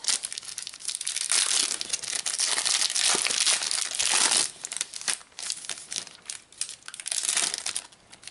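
Plastic wrapper of a trading-card packet crinkling loudly as it is torn open and the cards are pulled out, then scattered lighter crackles as the wrapper is handled, thinning out near the end.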